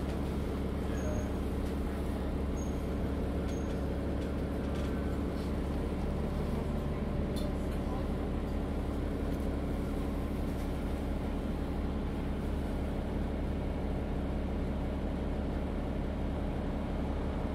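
Isuzu Citiport 18 articulated city bus's engine running with a steady low drone, heard from on board during a ride.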